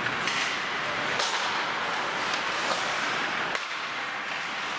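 Ice hockey game: skates scraping on the ice under a steady rink hiss, with several sharp cracks of sticks striking the puck, the loudest about a second in.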